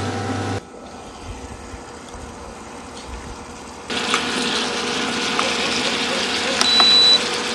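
Seasoned meat and vegetables sizzling in a frying pan on an induction cooktop. The sizzle starts loud about four seconds in after a quieter stretch. A few light taps and a short high beep come near the end.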